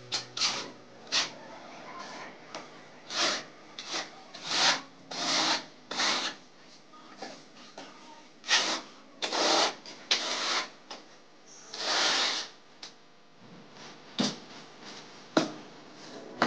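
Trowel scraping and spreading tile adhesive on a wall in an irregular series of short scraping strokes, with scoops from a plastic bucket.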